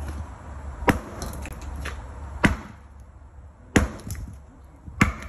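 Sledgehammer striking small copper transformers on concrete, four sharp, hard blows about a second and a quarter apart, busting the transformers open for their copper. Lighter clinks of broken pieces follow some of the blows.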